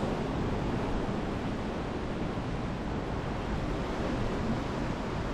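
Steady outdoor rushing noise, even in level and heaviest in the low end, with no distinct events.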